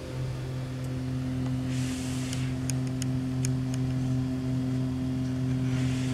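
Steady low hum made of several even tones. A brief rustle comes about two seconds in, followed by a few light clicks, and another rustle comes near the end.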